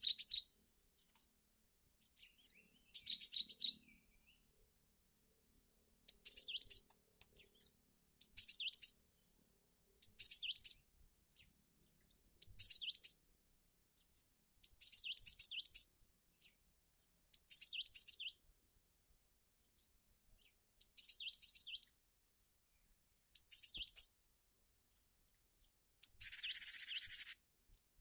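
Cinereous tit (gelatik batu) calling: a short, high chirping phrase repeated about every two seconds, a dozen or so times. Near the end, one phrase comes with a harsher hiss behind it.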